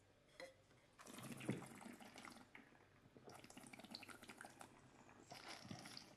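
Faint slurping of wine, air drawn through a sip in the mouth to aerate it, in three short spells.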